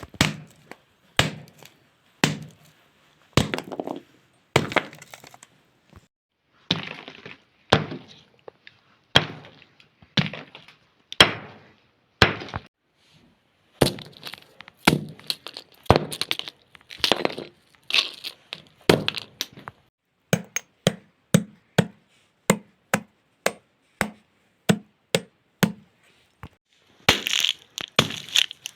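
Hammer blows about once a second, each smashing something brittle with a sharp crack and a short crunch. From about two-thirds of the way in, the strikes come quicker and lighter with a dull thud in each. Near the end they turn into dense crunching.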